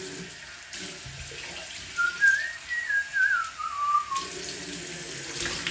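Tap water running into a bathroom sink as hands scoop it up to wash a face. About two seconds in, a short whistled tune wavers up and then down in pitch for about two seconds.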